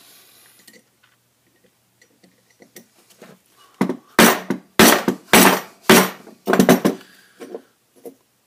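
Hammer blows on a screwdriver wedged into a cast aluminium conduit end fitting, knocking the steel clip loose: a few light clinks, then about six hard metal strikes in quick succession about four seconds in, followed by a couple of lighter taps.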